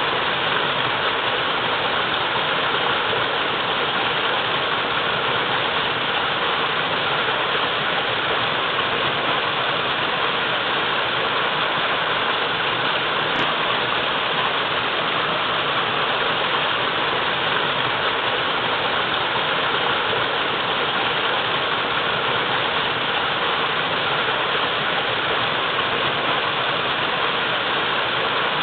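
Waterfall pouring in a steady, even rush of water.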